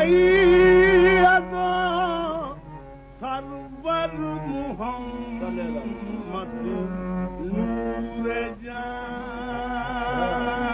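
Qawwali: a male voice sings ornamented, sliding melodic runs over a sustained harmonium drone, on an old live recording with little treble. It is loudest in the first second or so, dips briefly about three seconds in, then carries on.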